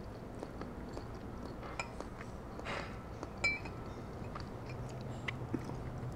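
Faint scattered ticks and a light clink of a small ceramic sauce dish as a fresh chili pepper is dipped into soy sauce, with the sharpest clink about three and a half seconds in.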